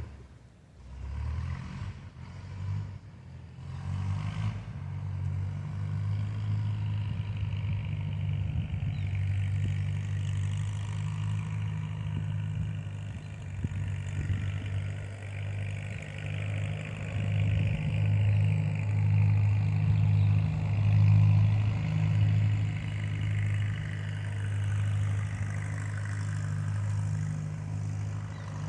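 A vehicle engine that comes in about a second in, after a few knocks, then runs steadily with its pitch holding level.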